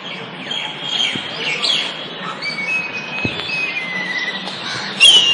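Songbirds chirping and singing, with drawn-out whistled notes and short chirps over a steady background hiss. A loud, falling whistle comes near the end.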